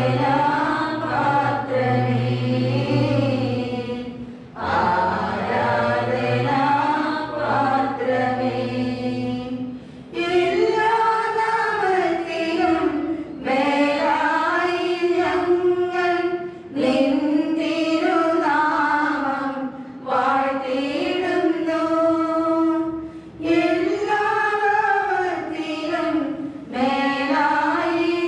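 Church choir singing a slow liturgical hymn in phrases of a few seconds each, with brief breaks between phrases. A low steady tone sits under the first few phrases, and higher voices carry the melody after that.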